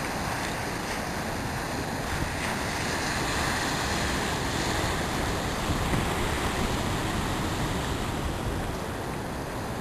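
Surf breaking on the shore of a rough sea, a steady rushing wash of waves, with wind buffeting the microphone.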